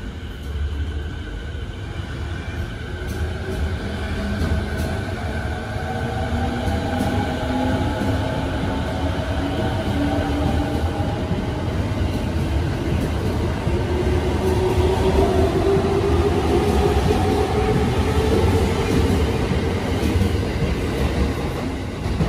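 Electric commuter train pulling out and accelerating past. Its motors whine in several tones that rise together in pitch over the rumble of the wheels, and it grows louder as it picks up speed.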